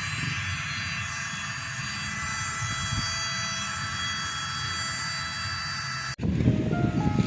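A motor running with a steady, high whine of several tones over a low rumble, cut off suddenly about six seconds in.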